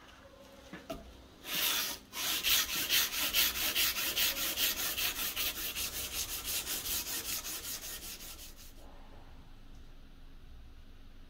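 Steel knife blade, cut from a circular saw blade, being sanded by hand: quick back-and-forth rubbing strokes, about four a second, starting about a second and a half in and stopping about nine seconds in.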